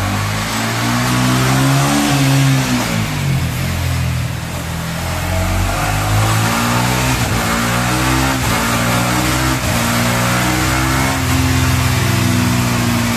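Yamaha R15 V3's single-cylinder engine, fitted with an aftermarket Noken S2 camshaft and a Juken 5 ECU, running hard on a chassis dyno. The revs climb over the first two seconds, drop back, then rise again and hold high near the end.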